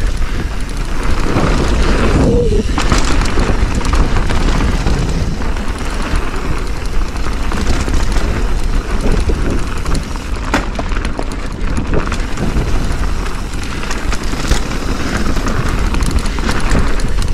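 Mountain bike riding fast down a dirt flow trail: continuous wind rumble on the microphone and tyre noise, with scattered knocks and rattles from the bike over bumps.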